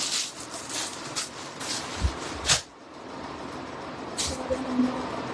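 Clothing being handled: rustling and crinkling with a few sharp clicks, the loudest about halfway through, over a steady hiss.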